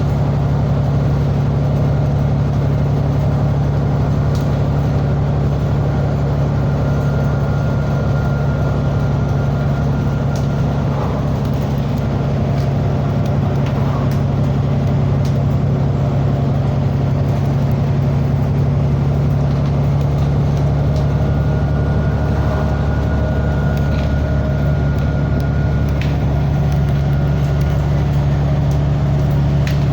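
A vehicle engine running at a steady speed, giving a loud, even, low drone with no change in pitch or level.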